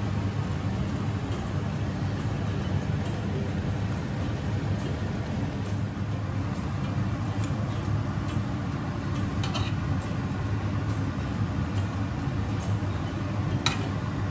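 A steady low mechanical hum with, now and then, a light clink of a metal spoon against a ceramic plate, clearest about halfway through and near the end.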